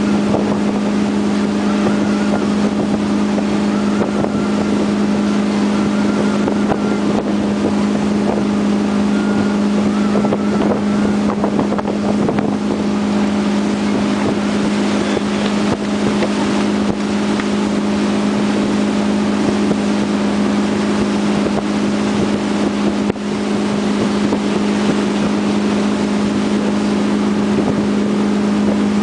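Tow boat's engine running steadily under load while pulling a wakeboarder, a constant loud drone heard from on board, with wind and rushing water noise over it.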